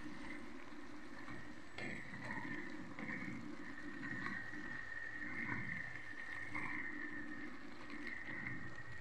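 A wooden spoon stirring diced vegetables in an enamelled cast-iron pot, with soft scraping and a few light knocks against the pot, over a steady high-pitched hiss.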